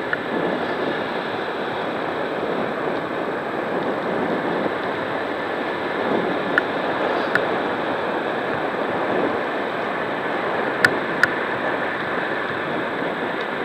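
Steady rushing noise of a bicycle ride: wind over the camera microphone and tyres rolling on the tarmac cycle path. A few sharp clicks break through about halfway and twice more later on, like the bike rattling over bumps.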